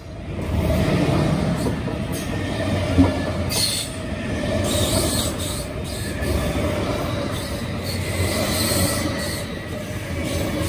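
Siemens Desiro Double Deck S-Bahn train (SBB RABe 514) passing close along the platform, with a steady running noise of wheels on rails.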